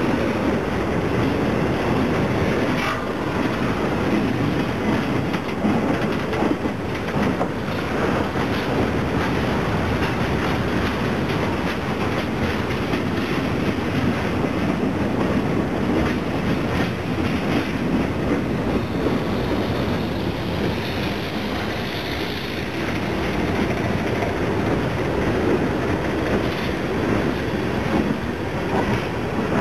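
Freight train cars, mostly tank cars, rolling past at close range: a steady rumble of steel wheels on rail with continuous clickety-clack as the wheels cross rail joints.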